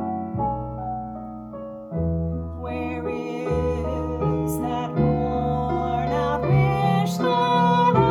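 Piano playing a slow ballad accompaniment, its chords and deep bass notes changing every second or so. A woman's singing voice, wavering with vibrato, comes in near the end.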